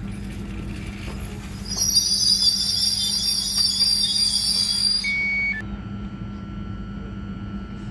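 ETR 421 electric multiple unit running with a steady low hum, its wheels squealing high-pitched on the rails from about two seconds in for some three seconds. A short high beep follows.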